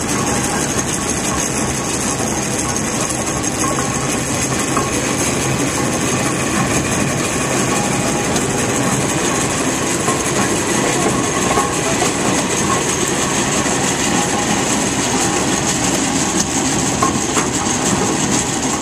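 Railroad winch running under its four-cylinder Continental engine, the engine and the winch's gearing making a steady, dense mechanical clatter.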